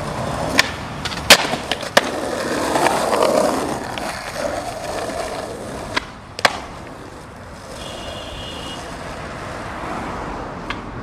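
Skateboard wheels rolling on pavement, broken by sharp cracks of the board's tail popping and the deck landing: three in the first two seconds, a pop and landing pair about six seconds in, and one more near the end.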